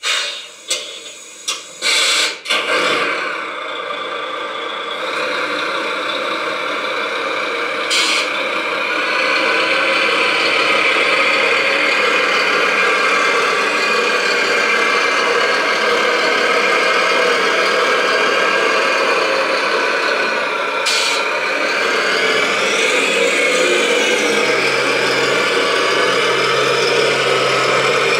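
RC Volvo A45G dump truck model's engine sound starting with a few clicks, then running steadily at idle. Two short hisses break in, one about 8 seconds in and one about 21 seconds in.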